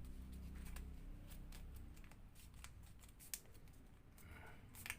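Sheet of origami paper being flattened and creased by hand: faint rustling with scattered crisp ticks, the sharpest about three seconds in and near the end.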